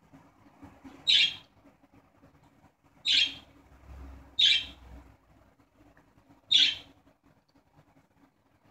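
Caged pet budgerigar giving four short, high-pitched chirping calls, each about a third of a second long, spaced one to two seconds apart.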